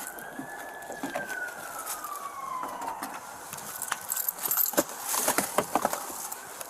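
Police siren wailing: one long tone that holds its pitch briefly and then slides down over about three seconds. It is followed by a run of sharp knocks and rattles, the loudest sounds here.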